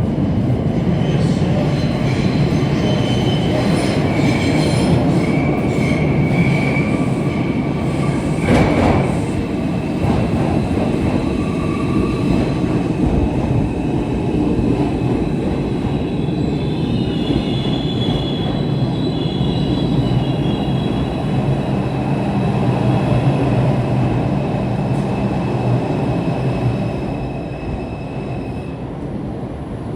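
New York City subway train running on the rails, a steady rumble with high-pitched wheel squeal, a sharp clank about nine seconds in, getting quieter near the end.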